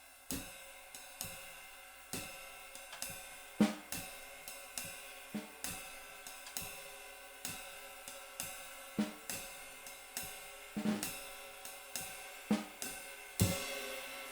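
Slow jazz swing ride pattern played with sticks on a riveted ride cymbal, the rivets adding a sizzle that keeps each quarter note ringing long between strokes. A few heavier strokes carry low drum hits, and the cymbal rings on after the last strong stroke near the end.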